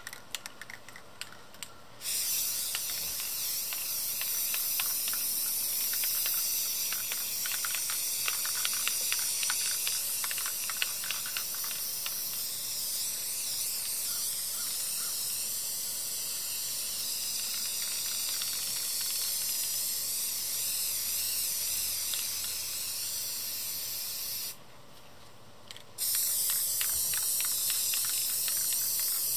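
Aerosol spray-paint can (Rust-Oleum American Accents) spraying onto canvas: a long steady hiss starting about two seconds in. It stops for a second or two near the end, then the spraying resumes.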